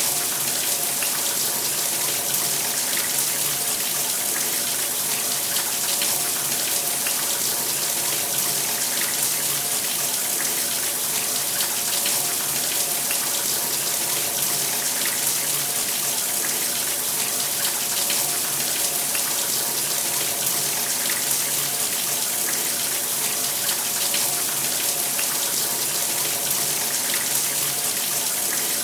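Shower running: a steady spray of water hitting a surface, with no change over the whole stretch.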